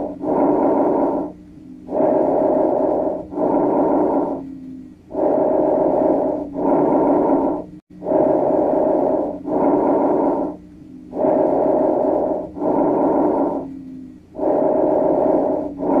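Normal bronchovesicular breath sounds heard through a stethoscope over the chest: each breath a rushing inhale followed by an equally long exhale (I:E ratio 1:1), with a short pause within each breath and a longer one between breaths, about one breath every three seconds.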